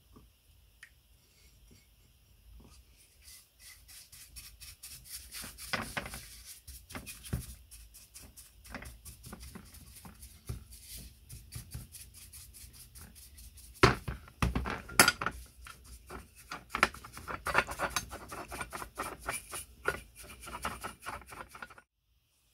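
Bristle brush dabbing and scrubbing tannin rust converter onto bare metal meat grinder parts in a plastic tray: a run of quick scratchy strokes and light clicks, with a few sharper knocks a little past the middle. It stops suddenly near the end.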